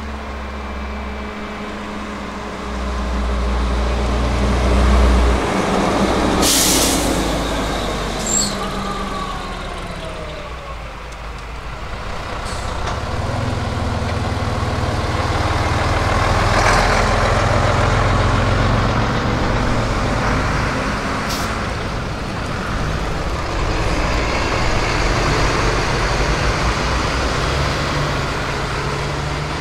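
Buses' diesel engines running as they pass, swelling louder a few seconds in and again around the middle. A short hiss of air brakes comes about six and a half seconds in.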